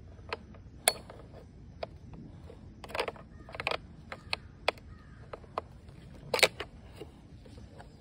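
Scattered clicks, rattles and knocks of climbing gear being handled: a plastic toy chainsaw being unclipped from a climbing belt, with rope and a metal carabiner. The sharpest knocks come about a second in and near the end.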